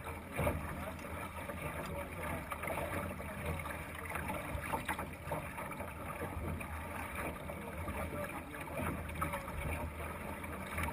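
Water washing along the hull of a Thistle sailing dinghy under way: a steady wash with a few faint knocks from the boat.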